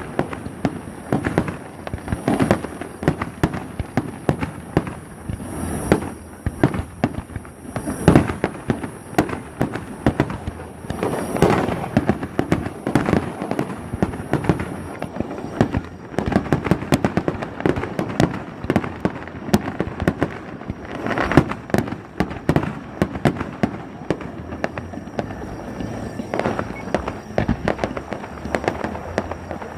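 Fireworks display going off non-stop: a dense run of sharp bangs and pops, with heavier booms about 8, 11 and 21 seconds in.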